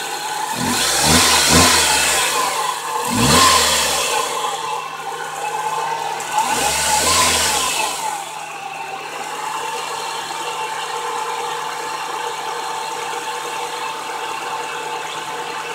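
1997 Nissan Sentra's 16-valve four-cylinder engine running just after a hard start on a newly fitted starter: it surges three times in the first eight seconds, then settles into a steady idle.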